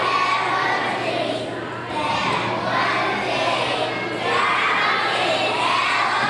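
A group of young children reciting a speech together in unison, a chorus of voices in phrases of about two seconds with brief pauses between.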